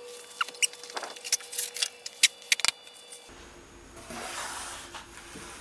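A rapid scatter of sharp clicks and short squeaks, then a brief rustling scrape as a sheet of material is laid on the laser engraver's bed.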